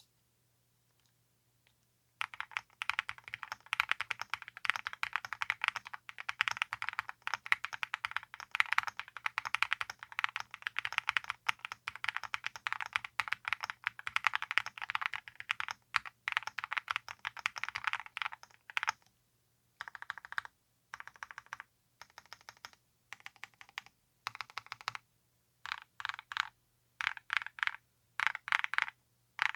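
Typing on an aluminum-cased Alice-layout mechanical keyboard with Domikey x GLOVE Choco Donuts linear switches, smooth and consistent with a light clack. After about two seconds of quiet, fast continuous typing runs to roughly two-thirds of the way through, then breaks into short bursts of keystrokes with pauses between them.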